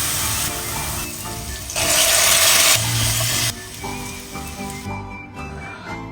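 Food frying in a hot pan: a steady sizzle that swells to its loudest about two seconds in, then stops short about three and a half seconds in.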